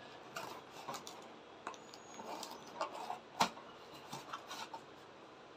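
Scissors snipping through the packing tape of a cardboard parcel box: a scattering of soft clicks and cuts, with one sharper click a little past the middle.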